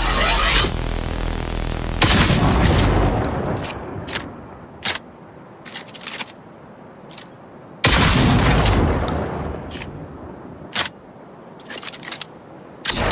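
DB-2 Satara double-barrel shotgun firing twice, about six seconds apart, each loud blast trailing off in a long rolling echo. Several short, light clicks come in the gaps between the shots.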